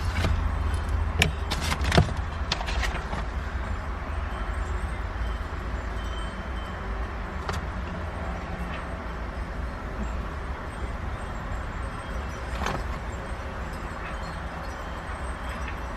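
Scattered light metallic clinks of bolts and tools being handled during the shifter install: several in the first three seconds, then single ones about seven and twelve seconds in, over a steady low background rumble.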